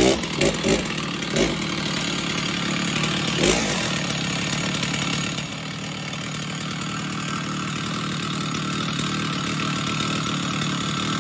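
Stihl MS660 two-stroke chainsaw, just started, running with a few brief surges in the first few seconds before settling to a steady idle about five seconds in. At idle the chain keeps creeping round, which the owner takes as a sign that the clutch springs are old and tired.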